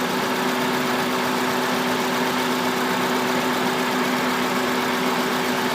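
Honda K20 four-cylinder engine idling steadily with a misfire on cylinder 3, which the mechanic traces to injector 3 getting no control signal from the engine computer.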